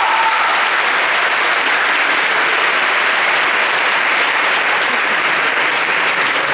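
Large audience applauding steadily, a long, even round of clapping.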